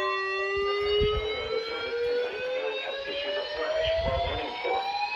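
Siren wailing, one pitched tone rising slowly and steadily in pitch. Two brief low thumps come about half a second in and about four seconds in.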